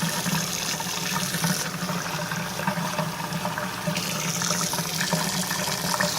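Steady running, trickling water over a low, even hum.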